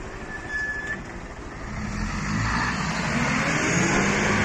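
Box truck's engine pulling under load as the truck manoeuvres, rising and growing louder over the last couple of seconds. A brief high beep sounds about half a second in.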